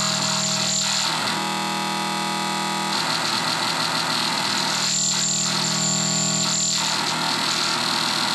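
Hand-built circuit-bent analog noise synth sounding continuously: a drone of layered steady tones under harsh hiss. A bright high hiss cuts in at the start, drops away after about a second, and comes back from about five to seven seconds in.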